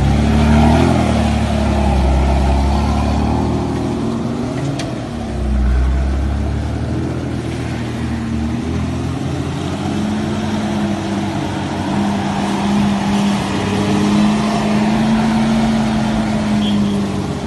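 Toyota Land Cruiser 80 Series engine revving and pulling under load off-road, its pitch rising and falling with heavy low surges in the first half, then holding a steadier note for the second half.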